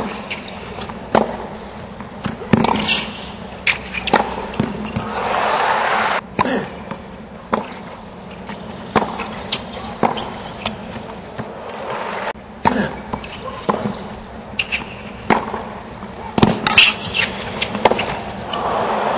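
Tennis ball struck by rackets and bouncing on a hard court in rallies, a run of sharp separate pops. Crowd noise swells about five seconds in and again near the end.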